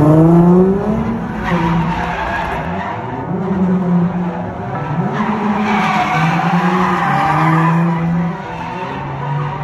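Nissan 350Z's V6 revved hard while drifting. The engine note climbs in the first second, then surges and dips repeatedly at high revs, with the rear tyres squealing and skidding on the pavement.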